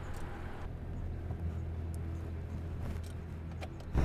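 Steady low rumble of a car driving, heard from inside the cabin, with a single short knock at the very end.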